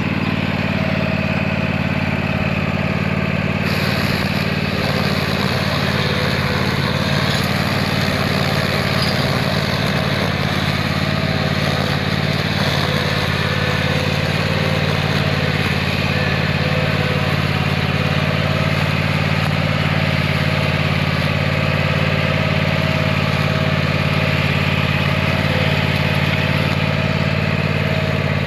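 Riding lawnmower engine running steadily at low throttle, with a mower-mounted Peco 5000 battery string trimmer spinning alongside; a hissier, higher layer joins about four seconds in.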